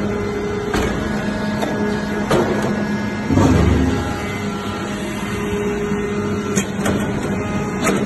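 Hydraulic iron chip baler (briquetting press) running: a steady hum from its hydraulic power unit with scattered sharp clicks and knocks. A louder low surge comes about three and a half seconds in.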